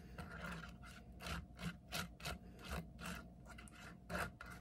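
Silicone spatula spreading mustard back and forth across a crisp toasted lavash flatbread: soft, rhythmic scraping strokes, about three a second.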